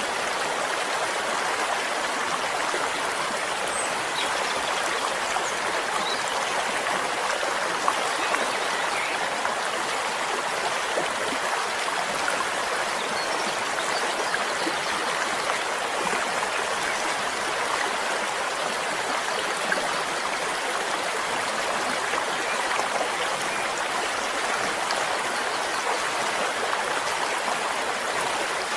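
Flowing stream: a steady, unchanging babble of running water with small scattered trickles and splashes.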